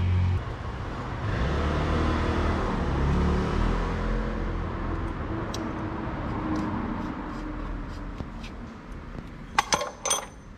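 Steady low hum and hiss, then a brief cluster of sharp metallic clinks near the end, from metal parts handled during car repair work.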